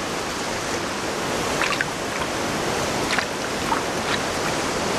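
Ocean surf washing steadily onto a sandy beach, with a few faint, brief high sounds over it.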